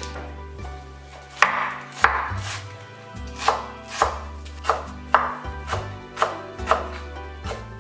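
Knife chopping on a cutting board: about a dozen sharp, irregular strikes, roughly two a second, over soft background music.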